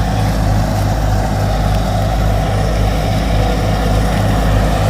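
An engine running steadily, with a low throb pulsing about three times a second.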